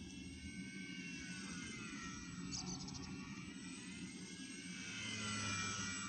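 RC model airplane's motor and propeller whining in flight, its pitch wavering up and down as the plane manoeuvres, getting louder near the end as it passes closer.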